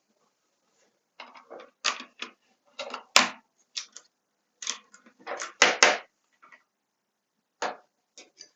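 Mechanical keyboard keys clacking in an irregular run of presses, starting about a second in, with a pause before a few last clacks near the end.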